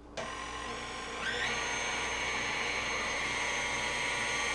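Electric stand mixer switched on with its wire whisk in a steel bowl of cream, its motor whine stepping up in pitch about a second later as it speeds up, then running steadily. It is whipping heavy cream that is almost at soft peaks.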